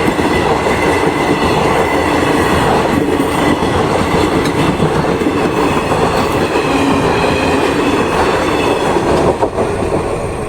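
Howrah–Dhanbad Black Diamond Express passenger train running past at speed: a loud, steady rumble and clatter of its wheels on the rails.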